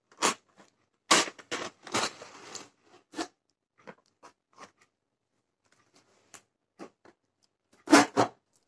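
Utility knife cutting through packing tape on a cardboard box, with scraping of the cardboard and tape being picked and pulled by hand. A cluster of sharp rasps comes about a second in, scattered clicks follow, and another loud cluster comes near the end.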